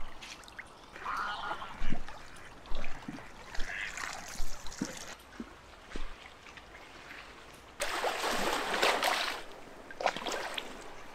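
Small waves lapping and splashing against a stony reservoir shore and tree roots, with a louder rush of water noise about eight seconds in.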